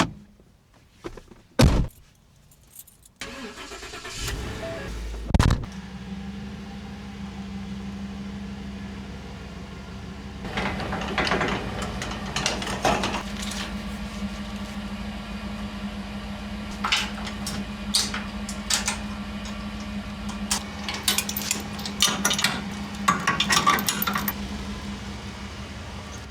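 A vehicle engine starts about three seconds in and then runs steadily at idle. From about ten seconds in, repeated metallic clanks and jingling rattles sound over it, as of a trailer being hitched up.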